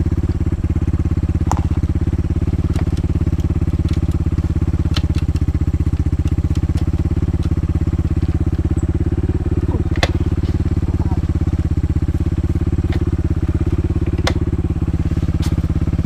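Dirt bike engine idling steadily, close up, with even firing pulses and no revving. A few sharp clicks sound over it.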